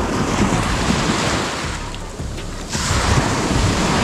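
Small ocean waves breaking and washing up close in two surges, the second starting abruptly near the middle, with wind rumbling on the microphone.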